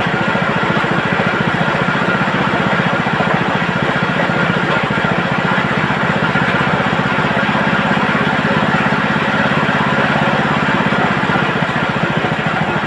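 Motor-driven chicken-plucking machine running steadily, a loud, fast, even rattling drone.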